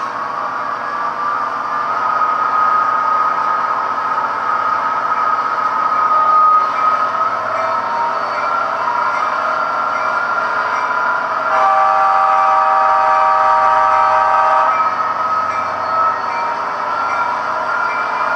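Model diesel locomotive sound from a TCS WOW sound decoder in an HO-scale EMD SD70ACe, heard through its small onboard speaker: the prime mover runs steadily with a whine that rises over the first couple of seconds. About halfway through, a multi-note horn sounds one long blast of about three seconds.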